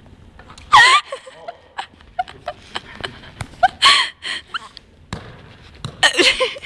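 A young man letting out loud, wordless yells, three times about two and a half to three seconds apart, each a short harsh shout with a bending pitch.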